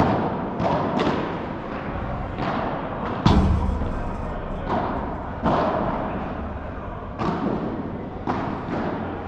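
Padel ball struck back and forth with padel rackets and bouncing on the court: a series of sharp knocks, each echoing in a large hall, with one heavier thud about three seconds in.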